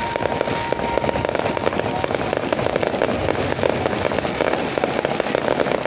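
Fireworks going off in a dense, unbroken crackle of rapid small bangs, with a thin steady whistle over the first two seconds.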